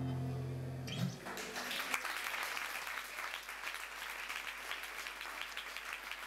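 The last strummed chord of an amplified acoustic guitar ringing and fading, cut off about a second in, then an audience applauding.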